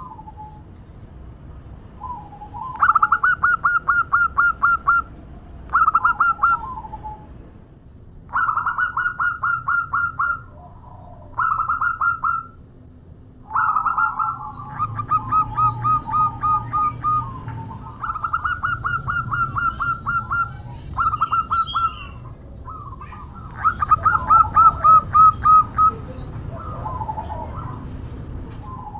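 Female zebra dove giving bouts of rapid staccato coo notes, about five or six a second, each bout a second to a few seconds long and repeated about eight times: the call a hen uses to draw a male.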